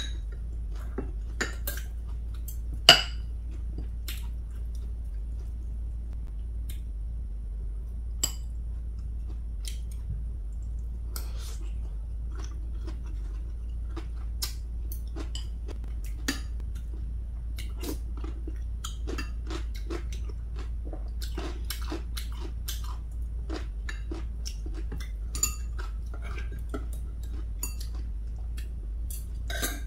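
Close-up chewing of food, with clicks and clinks of a metal spoon and chopsticks against bowls and plates; the sharpest clink comes about three seconds in. A steady low hum runs underneath.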